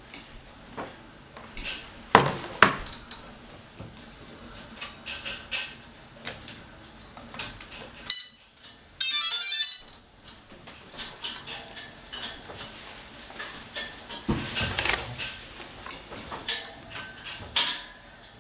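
Scattered light clicks and knocks, like small hard objects handled on a wooden table. About eight seconds in comes a short high electronic beep, then a loud high electronic tone for just under a second.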